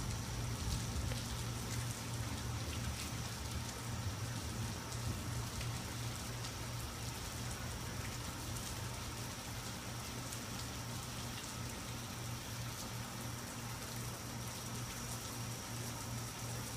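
Steady rain falling in a thunderstorm, with many small drop hits, over a constant low hum.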